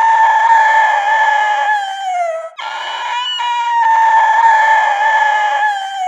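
A rooster crowing: a long crow that drops in pitch as it ends about two and a half seconds in, then an identical crow straight after, like a repeated sound-effect sample.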